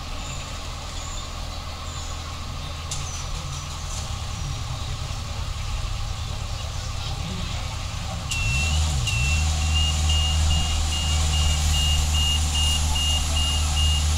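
Heavy machine's diesel engine running at a low rumble, then revving up louder about eight seconds in. A high warning beeper starts at the same moment and keeps repeating several times a second.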